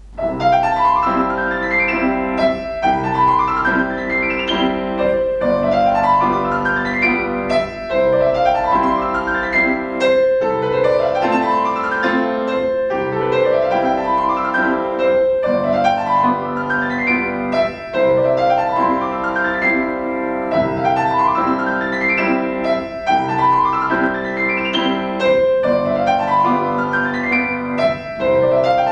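Solo grand piano playing a classical piece, starting at the very beginning: fast rising arpeggios sweep up the keyboard about every two seconds over lower chords.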